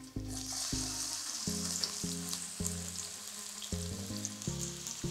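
Sliced red onion sizzling as it hits hot oil in a stainless steel frying pan, the hiss starting just after the onions drop in, with a few small ticks. Soft background music notes play underneath.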